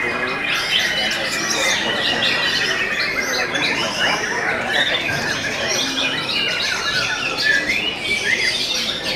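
White-rumped shamas (murai batu) singing in competition, several birds at once: a dense, continuous tangle of overlapping whistles, chirps and quick trills.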